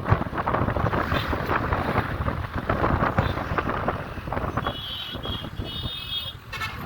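Wind buffeting the microphone over road traffic noise. About five seconds in, a faint high-pitched vehicle horn sounds twice.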